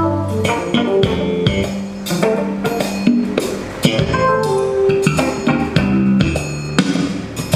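Music with drums, a strong bass line and guitar, playing steadily and loud.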